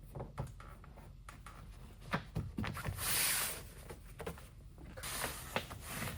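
An insulated fabric window cover being handled and fitted to the van's rear door: scattered light taps and clicks, with a brief rasping rustle about three seconds in and a shorter one about five seconds in.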